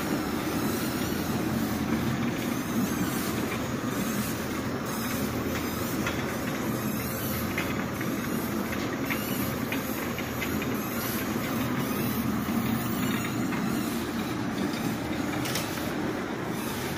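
Turntable pallet stretch-wrapping machine running, a steady mechanical rumble with hiss as the loaded pallet turns and stretch film is pulled around it.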